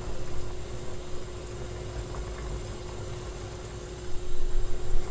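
Steady low rumble and hum from a pot of water heating on a portable stove, with a candle jar standing in the water to melt its wax; the sound grows louder about four seconds in.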